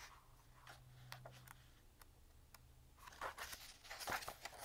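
Paper handling: a few faint light clicks, then pages rustling as a card deck's guidebook is leafed through, growing louder from about three seconds in.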